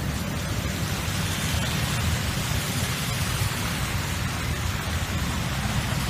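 Motor scooter and cars driving through shallow floodwater on a road, their tyres splashing and spraying water in a steady rushing noise.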